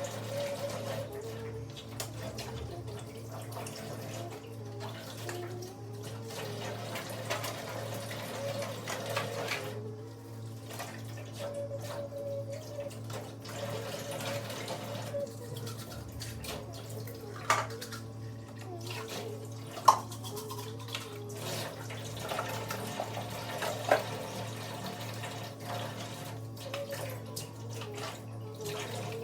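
Water running from a tap into a sink while dishes are washed, with three sharp clinks of dishes in the second half. Background music plays underneath.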